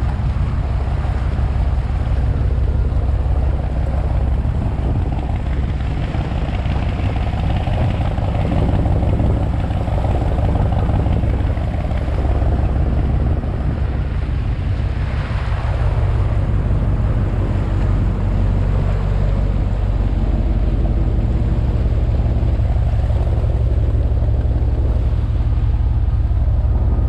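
A fishing boat's engine running steadily underway, a deep even drone, with wind and water noise over it.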